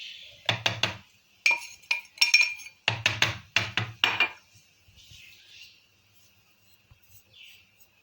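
Kitchen utensils and dishes clinking and knocking against a container in three quick clusters of taps during the first half, as cocoa powder is tipped in, then only faint handling sounds.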